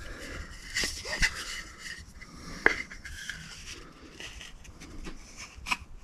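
Wheel marking gauge scraping as it scores layout lines into pine, with a few sharp clicks from handling the gauge and workpiece.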